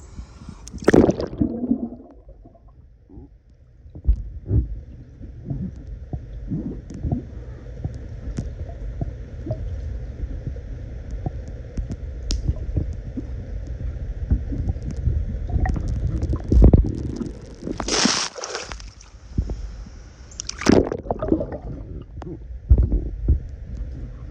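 Pool water sloshing and gurgling, with many small knocks and a low rumble, and loud splashy bursts about a second in and twice near the end.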